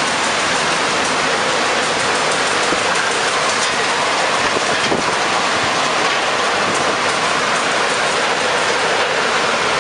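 Loud, steady rushing roar of storm wind and rain, unbroken throughout.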